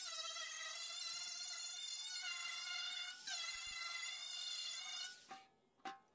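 Bauer 20V cordless angle grinder running with a high whine while stripping paint from a steel car body panel, its pitch shifting a little as the load changes. It winds down about five seconds in, with a short blip just before the end.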